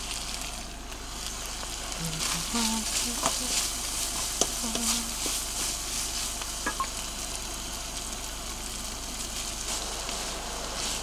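Bacon pieces and fusilli pasta sizzling in a non-stick pan on a portable gas cartridge stove, stirred and scraped with a wooden spatula. The scraping strokes come mostly between about two and six seconds in, over a steady sizzle.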